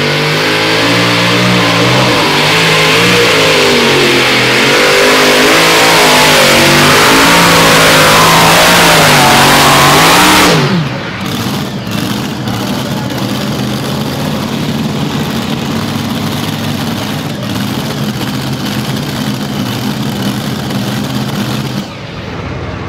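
Multi-engine modified pulling tractor at full power dragging the weight sled, its pitch wavering and then climbing through the pull. The engines are cut back sharply about ten and a half seconds in as the pull ends, then run at a steady idle, dropping quieter near the end.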